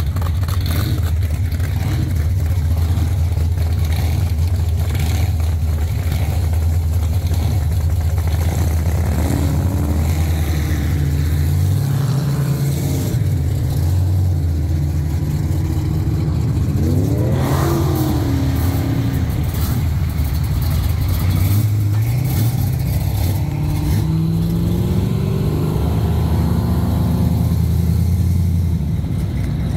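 Loud, low-pitched engines of Pro Street muscle cars running as the cars pull away one after another, with several revs that rise in pitch, the sharpest a little past halfway.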